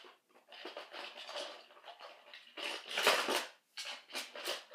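Toy trains clattering and rattling as they are handled and sorted through, in irregular bursts, loudest about three seconds in.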